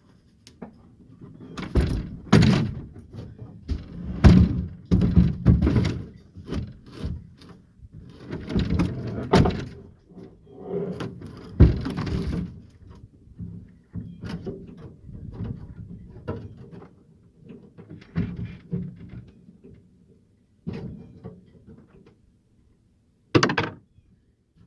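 Irregular thumps, knocks and bangs from the old metal fuel tank being handled and hauled to the trash, with a sharp bang near the end.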